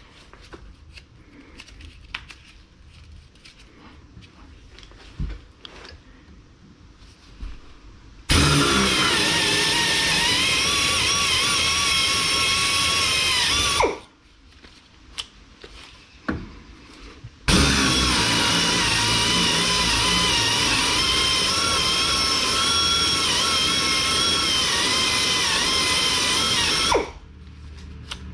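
Handheld power tool run twice, about five seconds and then about nine seconds, with a steady whine that wavers slightly in pitch. Light clicks and knocks of tools being handled come before, between and after the runs.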